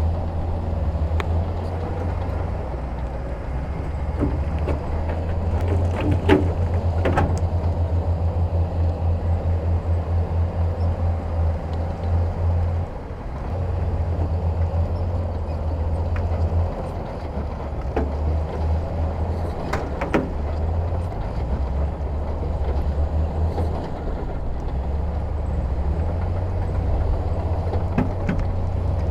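Heavy diesel earthmoving machinery running with a low, pulsing engine rumble. A few sharp knocks come about six to seven seconds in and again around twenty seconds in.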